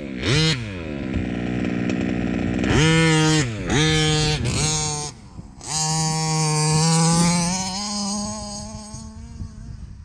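Small two-stroke petrol engine of a Rovan Baja 5B 1/5-scale RC buggy, revving up and falling back several times in short bursts, then held at high revs for about three seconds and growing fainter near the end.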